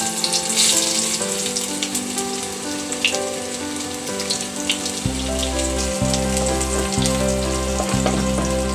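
Sliced onions sizzling and crackling in hot oil as they are tipped into the pan and stirred, frying into beresta. Background music plays throughout, with a bass beat joining about five seconds in.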